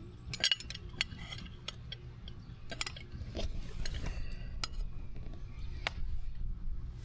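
Scattered light clicks and taps around a pan of butter warming over a campfire, about eight in all, over a low steady rumble.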